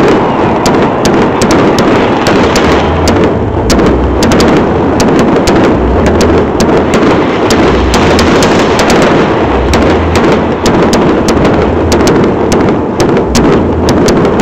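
A fireworks display in a dense, continuous barrage. Many sharp pops and crackles each second ride over a steady loud rumble of bursting shells.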